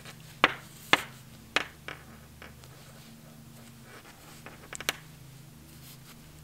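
Knitting needles and tapestry needle clicking lightly as stitches are slipped off onto the yarn tail: several sharp light clicks in the first two seconds and a couple more near five seconds, over a low steady hum.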